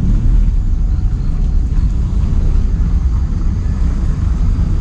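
Steady low rumble of a moving vehicle, its engine and road noise.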